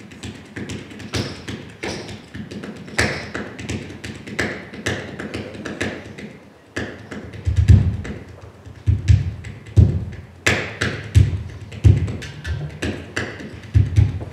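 Improvised hand-drum playing on congas and other African hand percussion. Light taps for the first half, then deep bass strokes from about halfway, spaced irregularly, with tapping between them.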